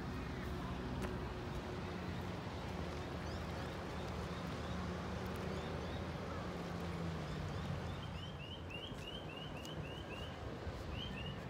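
Outdoor background with a steady low rumble, and small birds chirping: faint chirps about a third of the way in, then a quick run of about eight short, rising chirps, with two more just before the end.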